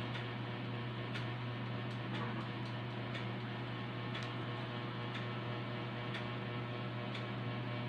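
Steady low electrical hum with faint, irregular ticks scattered through it.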